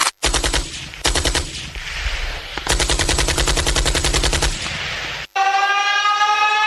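Automatic machine-gun fire in rapid bursts of about ten shots a second. About five seconds in, the gunfire gives way to a siren's steady wailing tone that rises slightly.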